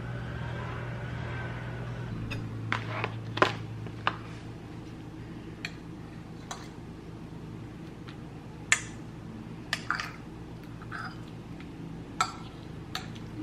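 Scattered clinks and knocks of a mug, spoon and containers being handled on a kitchen counter while coffee is made. A low hum fades out over the first two seconds.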